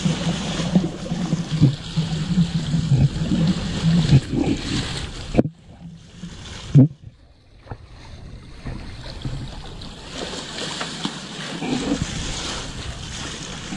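Wind buffeting the microphone and water rushing past a sailing boat's hull. The noise drops away suddenly about five seconds in, a single sharp knock follows, and then the wind and water hiss builds back up.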